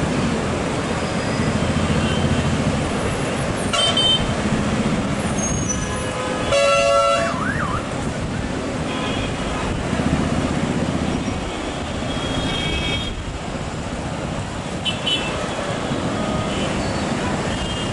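Steady road traffic with vehicle horns tooting now and then; one loud horn blast lasting under a second comes about a third of the way in.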